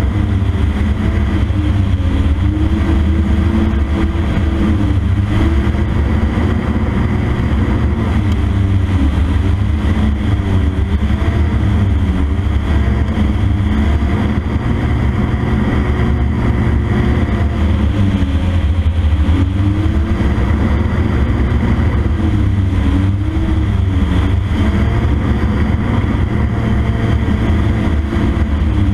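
Microlight aircraft's two-stroke engine and propeller running in flight, with a heavy rush of wind. The engine note wavers up and down every few seconds without cutting out.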